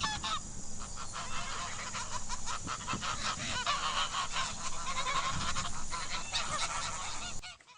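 Several geese honking, many short calls overlapping, stopping suddenly near the end.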